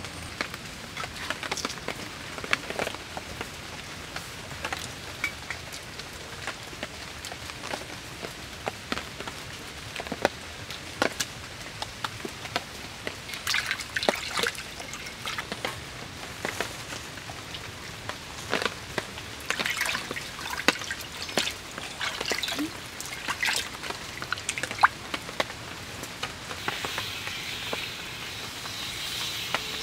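Irregular sharp clicks and taps over a steady background hiss; a steady high hiss comes in near the end.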